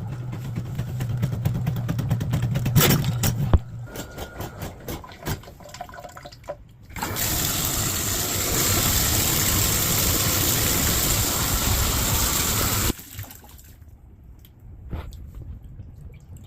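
Water running hard into a bathtub, a loud steady rush that starts about seven seconds in and cuts off suddenly some six seconds later. Before it there is a steady low hum with rapid clicking, then scattered clicks and knocks.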